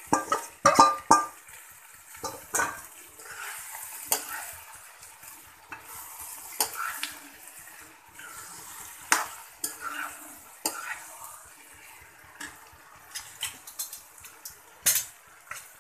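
Marinated chicken sizzling as it fries in a kadhai of onion masala, stirred with a perforated steel spatula that scrapes and clinks against the pan. There are several sharp clinks in the first second, then one every second or two.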